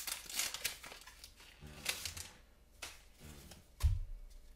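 Pokémon trading cards being handled: a run of quick clicks and rustles as the cards are flicked and slid, then a few single clicks and a soft thump near the end.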